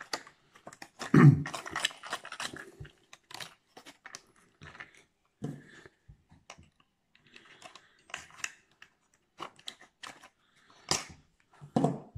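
Boxed fishing lures being handled and shifted inside a cardboard carton: a string of clicks, rustles and crinkles of plastic and card. There are dull knocks about a second in, around five and a half seconds, and near the end.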